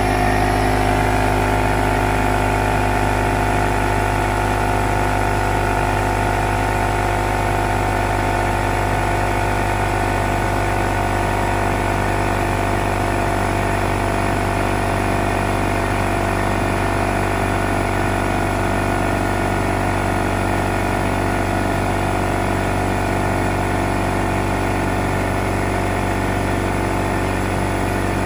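DeWalt 6-gallon pancake air compressor's electric motor and pump running steadily while filling the tank from low pressure, on its way up toward its 165 psi cut-off.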